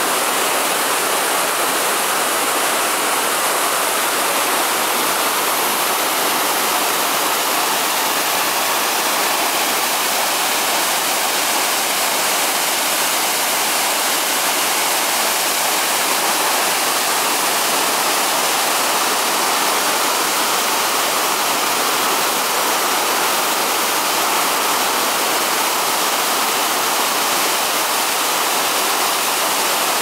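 Waterfall and rocky stream: a steady, unbroken rush of falling water.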